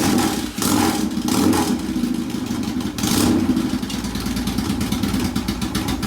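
Yamaha 650 twin engine firing and running unevenly, rising and falling in surges, as it catches on a first start.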